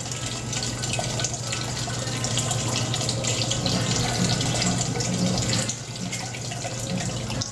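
Mash water being recirculated by the pump of an all-in-one electric brewing system, pouring from the return arm and splashing steadily into the water in the stainless kettle, with a steady low hum beneath.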